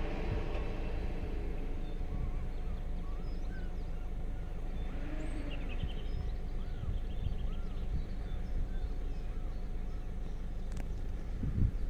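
Small birds chirping in quick, repeated short notes over a steady low outdoor rumble. A passing vehicle's engine fades out at the very start, and a single low thump comes near the end.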